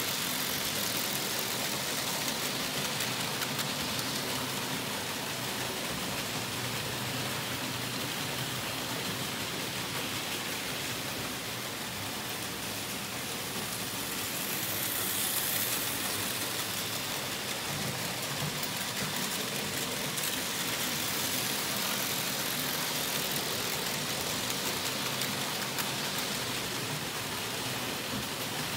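Märklin H0 model trains running on the stamped-metal M track: a steady rattle of wheels rolling over the track and its joints, swelling briefly about halfway through.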